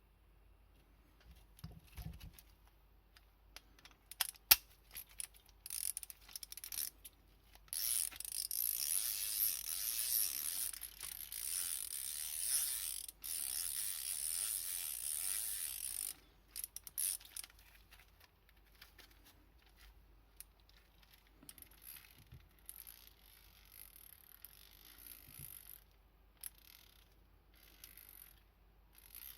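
Hand ratchet's pawl clicking as the ratchet is worked: a few scattered clicks, then a fast run of fine clicking lasting about eight seconds, then slower, quieter clicking.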